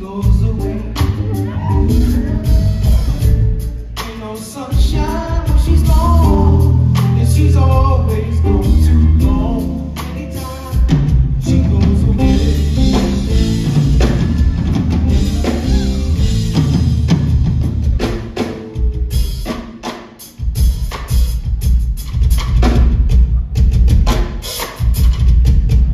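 Live drum kit solo, kick drum, toms and cymbals played hard, with a voice singing over the drums through the first half. The playing drops off briefly about twenty seconds in, then comes back loud.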